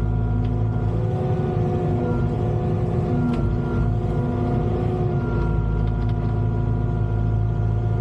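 Diesel engine of a Volvo EWR150E wheeled excavator running steadily at working revs, with small shifts in pitch now and then.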